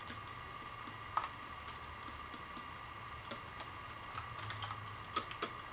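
Quiet room tone with a steady faint hum and high whine, broken by scattered faint clicks and taps from hands handling locs and a plastic spray bottle.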